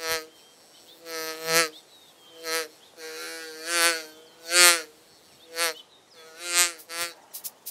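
Buzzing insect sound effect: short buzzes repeated about once a second, a few of them drawn out longer.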